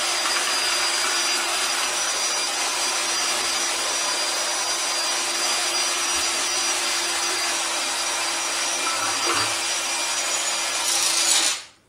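Flexible-shaft drain-cleaning machine running, its spinning cable scraping and grinding inside a washbasin drain pipe: a steady rasping noise with a steady hum under it, cutting off sharply near the end. The shaft is boring through a clog of white cement powder.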